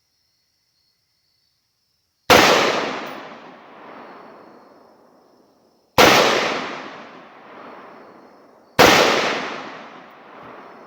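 Three single shots from an American Tactical AR-15 in 5.56 firing custom handloads with Hornady 73 grain ELD bullets, a few seconds apart, each followed by a long rolling echo. The rifle cycles normally between shots.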